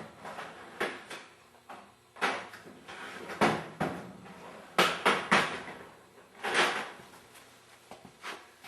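Several irregular metal clinks and scrapes from a large slotted screwdriver working the threaded adjuster of a snow plow pump's relief valve.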